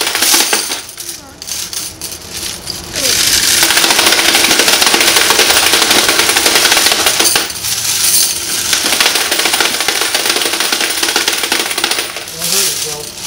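Loose quarters clattering and jingling as they are pushed across a metal sheet pan and fed into a hand-cranked coin counter. The clatter is patchy for the first few seconds, then becomes a dense, continuous jangle.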